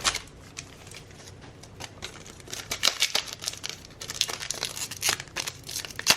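Plastic trading card pack wrapper crinkling as it is handled and torn open, with a few light clicks at first and then dense crackling from about two seconds in.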